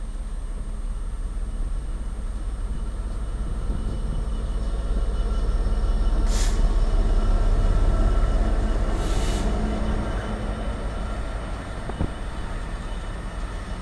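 British Rail Class 66 diesel locomotive, with its EMD two-stroke V12, hauling a freight train of covered steel wagons past close by. The engine drone and rumble swell to their loudest as the locomotive goes by about five seconds in, with two brief hisses, then the wagons keep rolling past on the rails.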